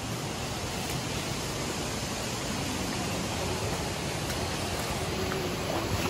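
Steady rush of river water running over rocks and small rapids.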